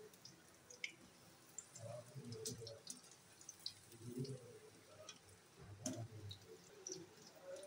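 Batter-coated potato pieces deep-frying in hot oil in a wok: faint crackling with scattered sharp pops and clicks.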